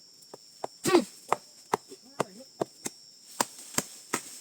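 A blade chopping repeatedly: about ten sharp strikes, two to three a second, some harder than others.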